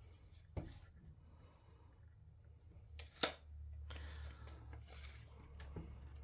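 A ruler and pencil handled on a wooden board while it is measured and marked: two sharp taps, the louder about three seconds in, then a soft scratching.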